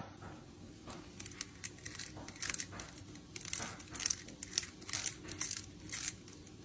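Faint, irregular crinkling and ticking: a string of small scrapes and clicks, some a little louder than others, in a quiet room.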